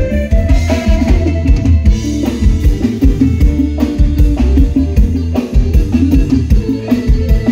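Live band music: a drum kit keeping a steady beat over electric bass, with electric guitar and keyboard, played loud through a stage PA.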